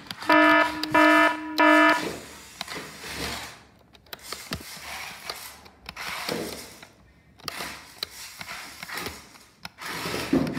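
Three short electronic beeps from a buzzer, about half a second apart, near the start. They are followed by fainter rubbing and clicking as a toy RC rock crawler's tyres scrape on a cardboard ramp and a tiled floor.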